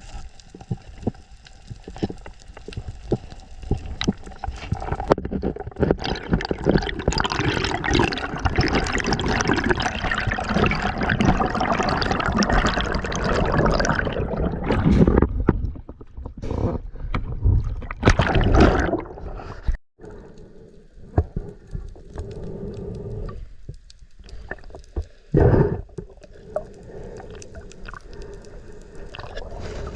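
Water sounds picked up by an underwater camera on a spearfishing dive: rushing, gurgling water with many small clicks and knocks. It is busiest in the middle stretch, drops out for a moment at a cut, then turns quieter.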